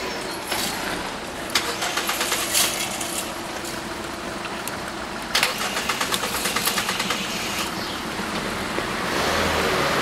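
Cars setting off and driving over a railway level crossing once it has reopened, one passing close and louder near the end. Two runs of rapid ticking, one about a second and a half in and another about five seconds in.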